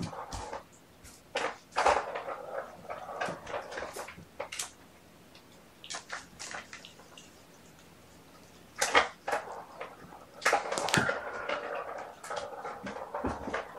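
Kittens moving about and playing: bouts of rustling and scratching with light knocks and clicks, coming and going, with the sharpest knocks about two seconds in and about nine seconds in.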